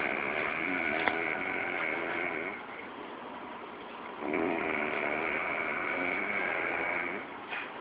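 Elderly woman snoring in her sleep: two long snores of about three seconds each, with a pause of about a second and a half between them.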